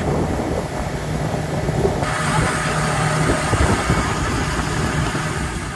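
Motorboat under way: a steady engine drone under a rush of wind and water. The rushing grows louder about two seconds in.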